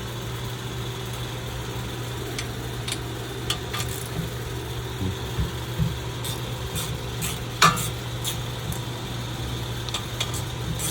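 Scattered light metallic clicks and clinks of hand tools on a car's rear brake caliper as Torx screws are worked loose, with one sharper click a little after halfway, over a steady low hum.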